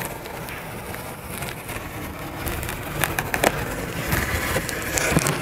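A replaceable-blade folding knife slicing along the plastic packing tape on a cardboard box's seam: a steady scratchy scraping of blade through tape and cardboard, with scattered sharp clicks, more of them in the second half.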